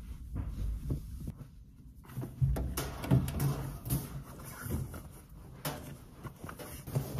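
Irregular knocks, clicks and low thumps of objects being handled, starting about two seconds in after a quieter stretch.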